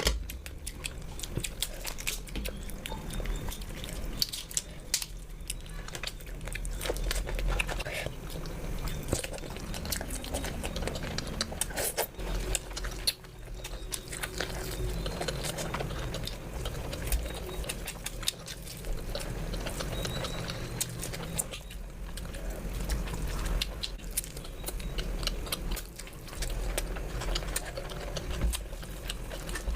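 Close-miked eating sounds: chewing and biting, with frequent sharp mouth clicks and smacks and soft low thuds.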